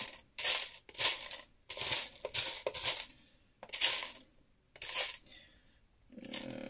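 Loose plastic LEGO pieces rattling and clattering as a hand rummages through them to find particular parts, in a series of short bursts about a second apart.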